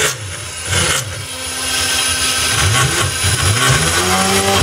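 CNC router at work: the spindle runs with a steady high whine while the cutter routes into a wood-fibre board. Its axis drive motors whine in low pitches that glide up and down as the gantry speeds up, slows and changes direction, most clearly in the second half.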